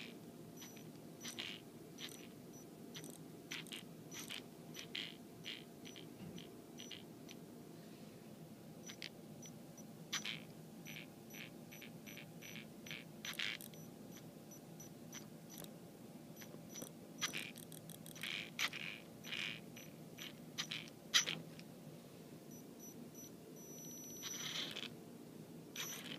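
Tekin ROC 412 brushless RC motor with the drag brake off, giving a long series of short, irregular metallic clicks over a faint steady hum. The clicks sound similar to the knocking heard with the drag brake on, and come as the motor spins down to a stop after each throttle release.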